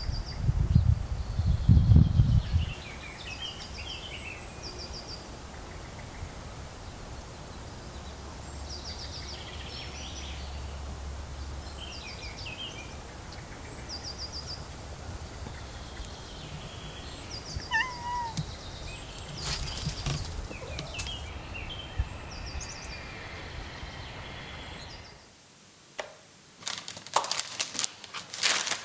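Small birds chirping over a steady outdoor background, in many short, high, repeated calls. A low rumble fills the first couple of seconds, and a few sharp clicks come near the end.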